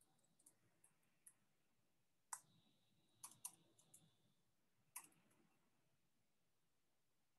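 Faint computer keyboard typing: scattered key clicks, with the loudest strokes about two, three and five seconds in.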